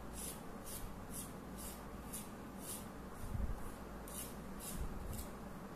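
Radish being peeled by hand: rhythmic scraping strokes, about two a second.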